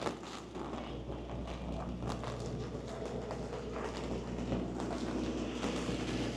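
Footsteps over a steady low mechanical hum, with scattered short clicks and knocks.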